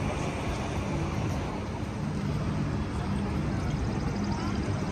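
Steady low outdoor rumble with the faint voices of a crowd of people walking.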